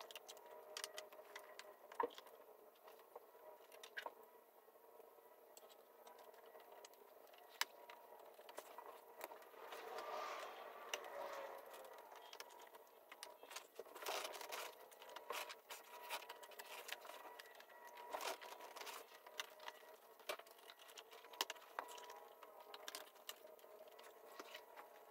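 Faint scattered clicks, taps and light scrapes of a wood veneer dash trim piece being handled and pressed into place in a car dashboard, over a faint steady hum.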